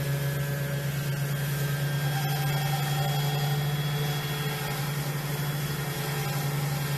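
Electric power sander running steadily with a low motor hum as it is worked over the wooden bench.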